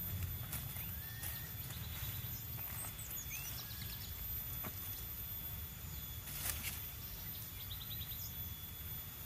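Forest ambience: a steady high insect drone with a few short bird chirps and quick trills, a handful of sharp clicks or knocks, and a low rumble underneath.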